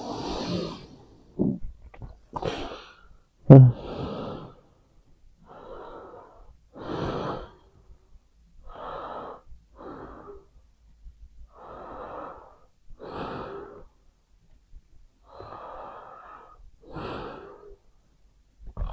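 A sleeping person snoring with rasping, wheezy breaths, an in-breath and out-breath about every three seconds. A short, sudden louder burst comes about three and a half seconds in.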